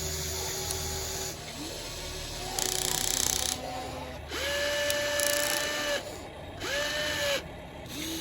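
Electric motors of a radio-controlled model excavator whining in short stop-start runs as its controls are worked. Each run is a steady whine lasting a second or so, and the two loudest come in the second half.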